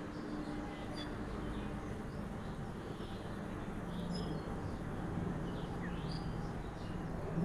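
Small birds chirping on and off, short high calls and quick glides, over a steady low noise.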